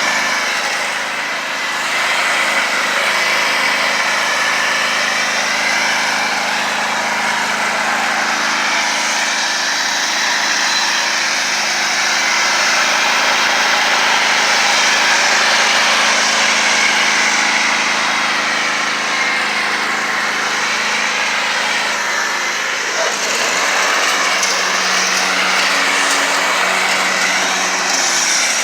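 Riding lawnmower's small engine running steadily as the mower is driven, its pitch shifting about 23 seconds in.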